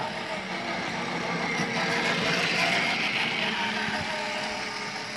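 A children's battery-powered ride-on toy motorcycle driving across paving tiles, a steady running sound that swells a little midway.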